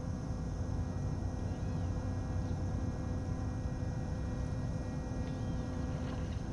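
Steady low hum of a small boat's electric motor, with fixed whining tones over a low rumble. A few faint, short high chirps sound above it, about two seconds in and again near the end.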